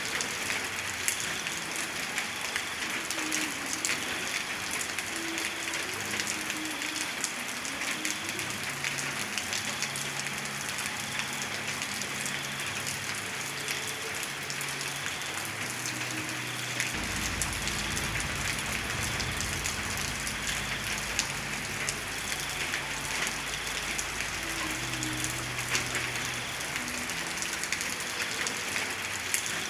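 Heavy rain falling steadily, with many close drops ticking. A low rumble comes in a little past halfway and keeps on under the rain.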